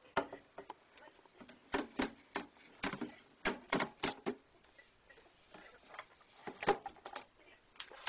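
Irregular sharp clicks and light knocks, about a dozen, bunched in the first half and with the loudest one near the end, from handling the plastic body of a Redmond RHF-3303 ultrasonic humidifier.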